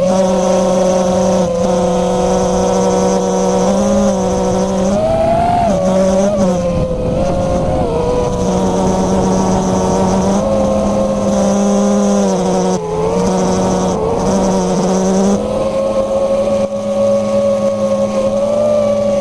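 FPV quadcopter's brushless motors and propellers whining. The pitch rises and falls with throttle, over a steady lower hum. This is the strange noise that comes along with jello vibration in the footage.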